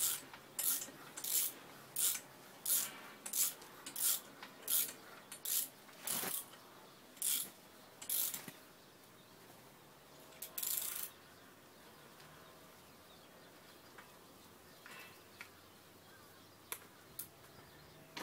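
Ratchet wrench being swung back and forth on a bolt of a small engine pump, a short rasping ratchet stroke about every two-thirds of a second. The strokes slow to a few spaced ones and stop about eleven seconds in, leaving only a few faint clicks.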